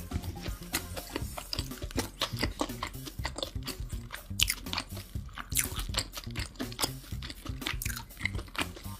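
Close-miked chewing of a mouthful of burger, with many short, quick clicks and crunches, over background music.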